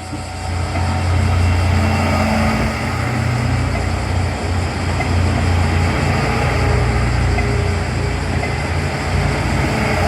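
KiHa 40 and KiHa 47 diesel railcars passing close by as a three-car train, their diesel engines running with a loud, deep hum that swells in about half a second in and then holds steady.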